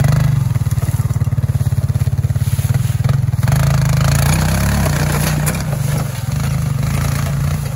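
ATV engine running under load as it tows a riding lawn mower on a strap, with a fast, even firing pulse. It works harder about three and a half seconds in, then eases back.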